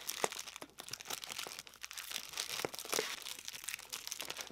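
Thin clear plastic bags crinkling and rustling as they are handled and pulled open by hand, with irregular crackles throughout.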